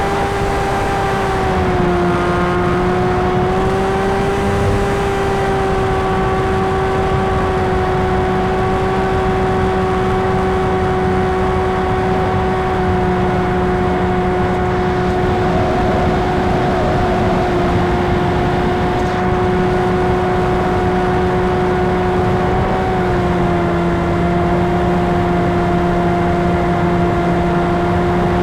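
Electric brushless motor and propeller of an FPV plane in flight, a steady whine that dips slightly in pitch twice as the throttle eases, over constant wind rush on the onboard camera.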